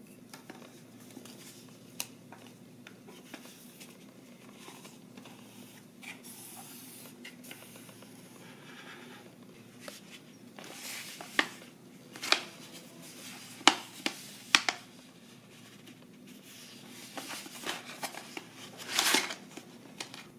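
Hands handling pencils and a paper envelope: scattered light taps and clicks, then several sharp clicks and paper rustles. The loudest rustle comes near the end, as a brass pencil sharpener is drawn out of a yellow paper envelope.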